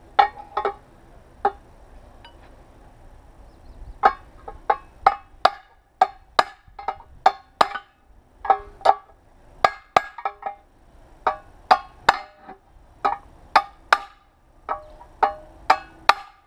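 Steel angle-grinder guard being beaten into round shape around an inserted pipe: repeated metal-on-metal blows, each ringing briefly with clear metallic tones. A few blows, a pause of about two seconds, then a steady run of roughly two blows a second.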